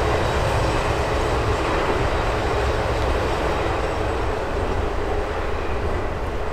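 Double-stack intermodal freight train's wheels rumbling steadily on the rails as the tail of the train pulls away, the sound slowly fading.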